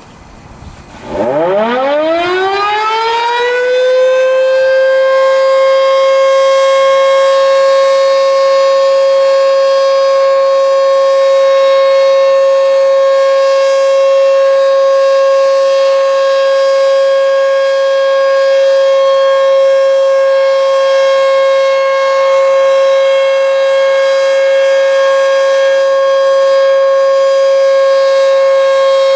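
Federal Signal electromechanical outdoor warning siren winding up about a second in, its pitch climbing over a few seconds to a steady, loud tone that then holds at full speed. Fainter tones at slightly different pitches sound under it.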